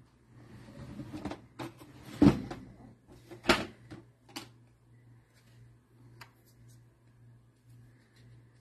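Objects being handled off camera: about two seconds of rustling and clicks, then two sharp knocks about a second apart, followed by a few lighter taps, over a faint steady low hum.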